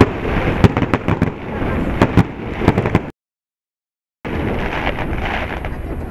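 Aerial fireworks shells bursting, a rapid string of sharp bangs and crackles. About three seconds in the sound cuts out completely for about a second, then returns as a steady background noise with no more bangs.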